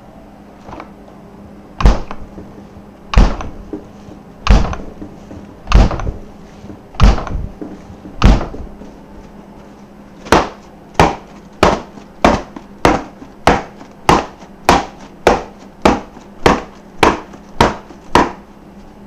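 A series of heavy knocks or thuds: six slow, evenly spaced blows about a second and a quarter apart, then, after a short pause, a faster even run of about fourteen at roughly two a second.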